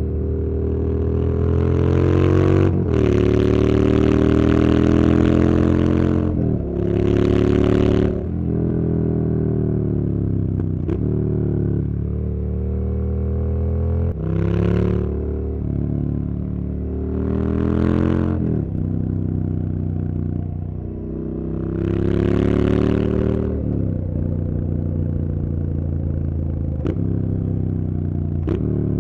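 Motorcycle engine pulling through the gears: its pitch climbs under throttle and drops back at each shift, several times over, with bursts of rushing noise at the higher revs and a few sharp clicks.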